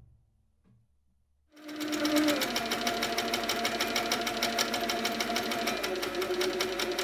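Handi Quilter Sweet Sixteen sit-down longarm quilting machine starting up about a second and a half in, then stitching steadily. Rapid, even needle strokes tick over a motor whine whose pitch shifts slightly as the quilt is moved.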